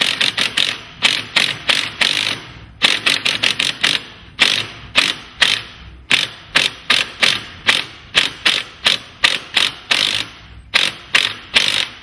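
Hand socket ratchet on an extension driving a hex-head screw through a garage door hardware bracket into the wooden jamb. The pawl clicks in a steady run of about three or four clicks a second, with a short break about two seconds in and another near the end.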